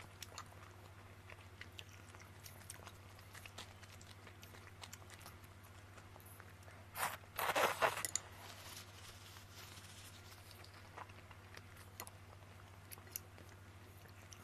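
Person eating oil-splashed noodles close to the microphone: faint chewing with small scattered mouth clicks, and about seven seconds in a loud, noisy slurp of noodles lasting about a second.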